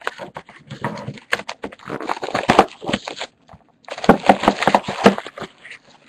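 A sealed trading card box being opened by hand: crackling and tearing of its wrapping and cardboard in two spells, with a short break just past the middle.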